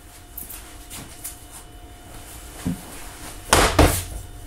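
About three sharp knocks in quick succession near the end on a wooden sheet lying on a CNC machine bed, struck by hand or a tool to seat it. Before them only faint room tone.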